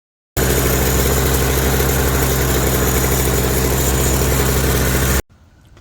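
Toro CCR 3650 snowblower's two-stroke engine running steadily after its primer bulb was replaced. It cuts in suddenly and cuts off suddenly near the end.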